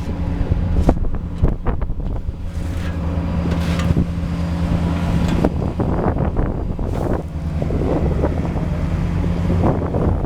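Diesel engine of a Vögele Super 1800-3 asphalt paver running steadily at a constant pitch, with scattered clanks and knocks from the machine and wind buffeting the microphone.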